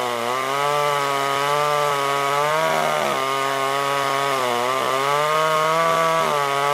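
Chainsaw cutting into a coconut palm trunk to open the felling notch, its engine pitch sagging under load and picking up again about four times.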